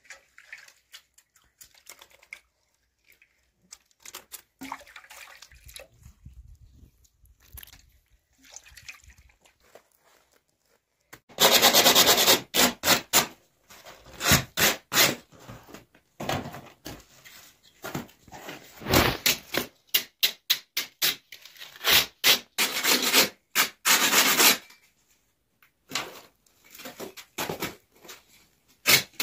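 A small metal scraper rasping against the crust of freshly baked tandoor naan in rapid strokes. It is faint and scattered at first, then loud, fast scraping in runs from about eleven seconds in.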